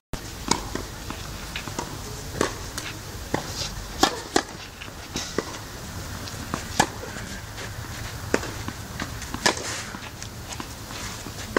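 Tennis rally: a ball struck back and forth by rackets, with a sharp pop every one and a half to two and a half seconds and fainter knocks in between.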